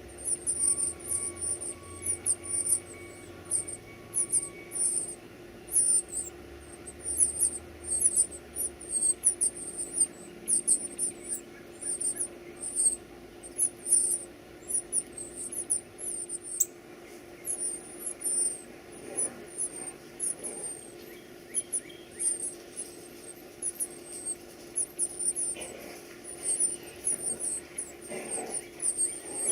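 Baby birds cheeping: rapid, very high-pitched begging calls, two or three a second, that thin out for a few seconds midway and then pick up again.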